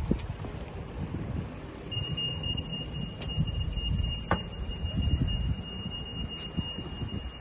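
Low rumble of a moving vehicle, with a thin, steady high-pitched tone that comes in about two seconds in and holds. A couple of faint clicks partway through.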